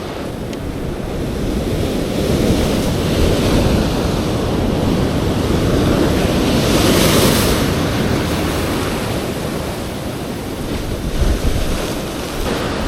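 Ocean swell surging and washing over a rock ledge, with wind buffeting the microphone. The wash builds over the first few seconds, peaks in a hissing rush of whitewater about seven seconds in, and surges again briefly near the end.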